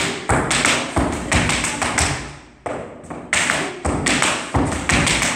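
Tap shoes striking the floor in quick runs of taps as a tap dance step sequence is danced, with a short pause about two and a half seconds in.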